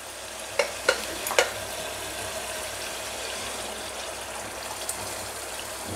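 Steady sizzling of tomato masala cooking in oil in an aluminium pressure cooker as tomato puree is poured in, with three sharp clicks in the first second and a half.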